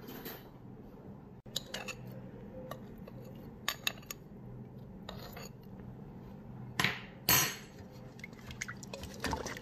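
Wooden spatula stirring thin broth in a rice cooker's non-stick inner pot: short strokes of sloshing liquid with scrapes and knocks against the pot, the loudest a pair of strokes about two-thirds of the way in. Salt is tipped in from a small bowl partway through, over a steady low hum.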